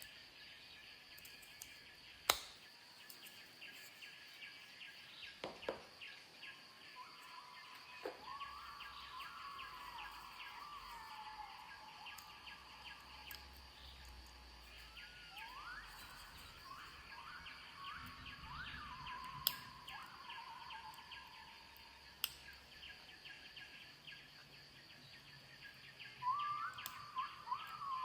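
Faint birdsong with whistled, gliding phrases over a steady high insect drone, broken by a few sharp, single metallic clicks from lock picks working a padlock.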